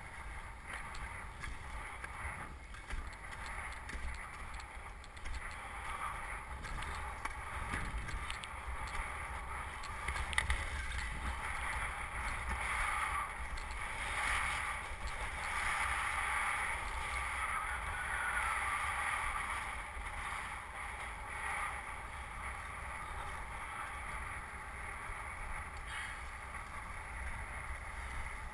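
Wind buffeting a helmet-mounted camera's microphone, with the hiss of skis sliding over snow, strongest in the middle stretch.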